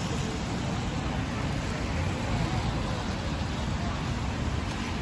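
Steady city road traffic: cars passing on a wet road, an even hiss over a low rumble.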